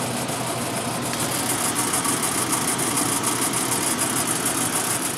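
A truck's V8 engine idling steadily on a freshly installed set of spark plugs and wires, with a steady hiss of rain over it.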